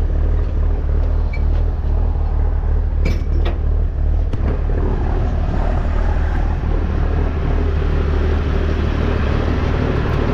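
Truck engine running steadily while driving, a deep drone heard from inside the cab, with a few sharp clicks about three to four and a half seconds in.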